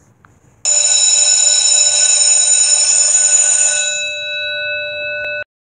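Electric school bell ringing continuously. It starts suddenly about half a second in, eases a little about four seconds in, then cuts off abruptly.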